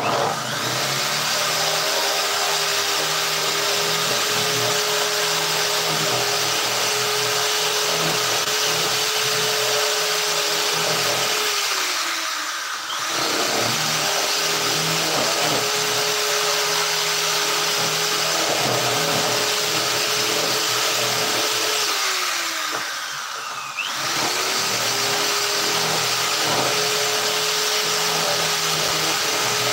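Electric power tool running steadily with a motor whine. It winds down twice, about twelve and twenty-three seconds in, its pitch falling away before it starts again each time.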